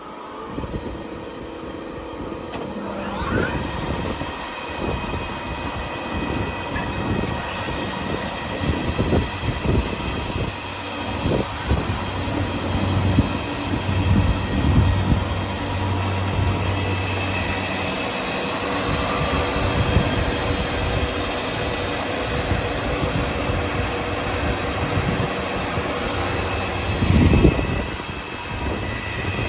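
Weinig Profimat 23E four-sided planer running: about three seconds in a cutter spindle motor spins up with a rising whine that settles into a steady high whine. Irregular knocks and rumbling run underneath, with a louder surge near the end.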